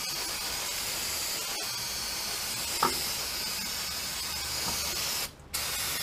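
Aerosol spray can releasing a steady hissing jet onto a truck's rear drum brake backing plate and wheel cylinder. The spray stops briefly about five seconds in, then starts again. A single short tap sounds about three seconds in.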